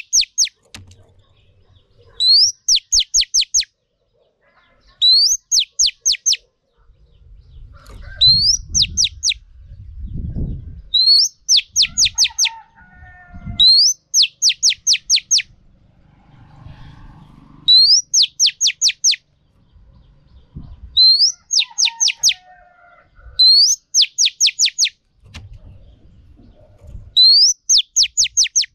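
Female oriental magpie-robin (chòe than mái) singing the same short phrase about every three seconds: a rising whistle followed by a quick run of five or six sharp falling notes. This is a female's song, used to stir male magpie-robins into singing.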